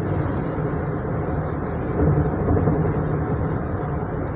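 Steady engine and road noise inside the cab of a 2020 Ford Transit on a test drive, a low rumble with no clear changes in pitch.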